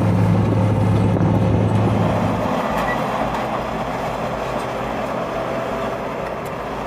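Heavy diesel engine of a BTM-3 trench-digging machine running with a steady hum. About two and a half seconds in the steady low drone drops away, leaving a rougher mechanical rumble.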